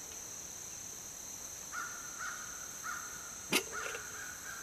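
Steady high insect chirring from crickets, with a bird calling several short times from about two seconds in and once longer near the end. A single sharp click, the loudest thing, comes about three and a half seconds in.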